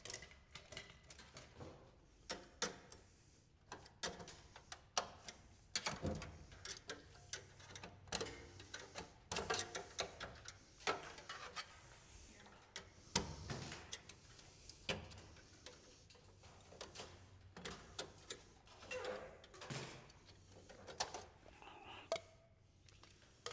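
Irregular light clicks, knocks and clatter of server parts being handled: empty drive caddies and other components being pulled out of a Sun Sunfire server chassis.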